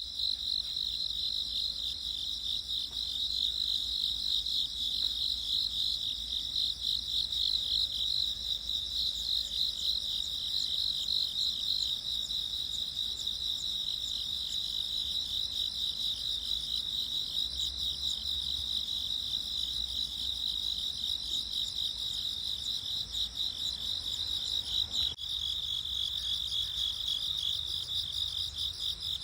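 Steady high-pitched chorus of insects, a dense fast pulsing trill that never stops, with a single faint click near the end.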